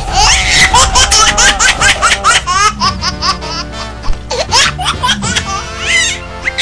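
High-pitched laughter in quick repeated pulses over background music with a steady low bass line.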